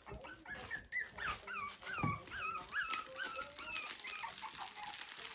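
A young puppy whimpering: a run of short, high squeaks, each falling in pitch, about three a second, that stops shortly before the end.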